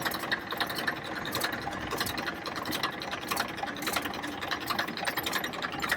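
Tractor's diesel engine running with a steady, rapid clatter.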